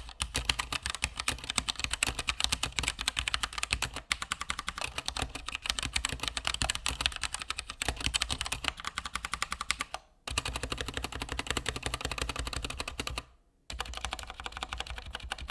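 Fast typing on a Keychron K2 mechanical keyboard with Gateron Brown switches on a metal plate: a dense, steady clatter of keystrokes, with short pauses about ten seconds in and again near the end.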